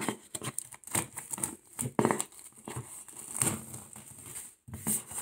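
Clear plastic wrap being pulled and torn off a cardboard product box, crinkling with irregular crackles.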